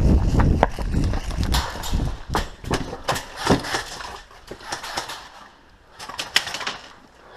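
Footsteps and knocking of gear close to the microphone: an irregular run of knocks and clicks over a low rumble. It is densest in the first few seconds, eases off, then comes back in a short cluster about six seconds in.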